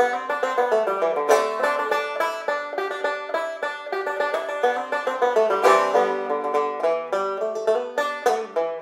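Background music: a fast plucked-string instrumental with quick picked notes.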